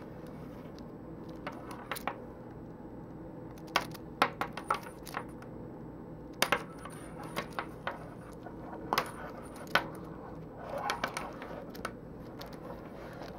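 Painted segmented wooden toy snake flexed by hand, its wooden segments clicking and clacking against one another in irregular little clusters.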